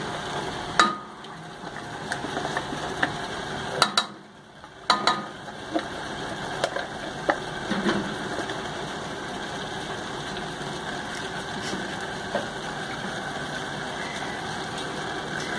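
Light clicks and knocks of a silicone spatula and a condensed-milk carton against an aluminium saucepan as the milk mixture is stirred, spaced out over the first half, over a steady low mechanical hum.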